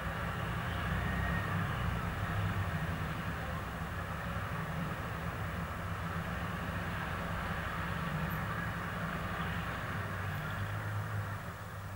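Diesel engine of a wheeled tractor-loader idling with a steady low drone, while cars pass on the street. The sound drops a little about a second before the end.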